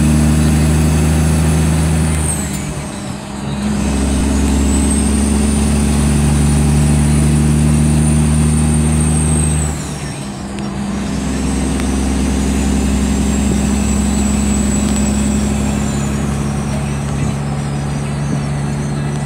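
Semi-truck's diesel engine from inside the cab as the driver shifts a manual gearbox: the engine note and a high whine drop away at two gear changes, about two and a half and ten seconds in, then build again as the engine pulls.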